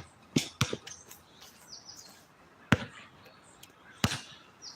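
A basketball bouncing on an outdoor court: a few single sharp bounces, unevenly spaced, the loudest two near the middle and the end. Short high bird chirps come between them.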